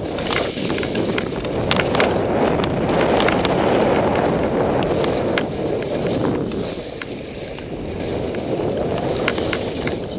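Skiing downhill: edges sliding and scraping across snow, the rush swelling and easing through the turns, with scattered sharp clicks and wind buffeting the microphone.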